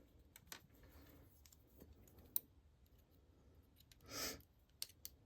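Faint clicks and taps of small plastic items being handled, with one sharper click about two and a half seconds in and a brief rustle about four seconds in, as a diamond painting drill pen is cleared out.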